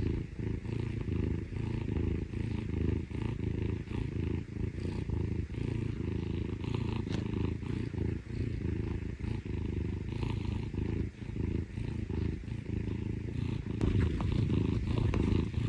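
A young Scottish Fold cat purring steadily, a low rapid throb that grows louder near the end. It is the purr it puts on when it wants affection.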